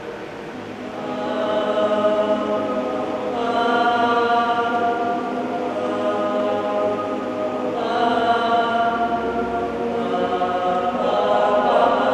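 Male choir singing unaccompanied in harmony, holding sustained chords that move to new ones every few seconds. It starts soft and swells up within the first couple of seconds.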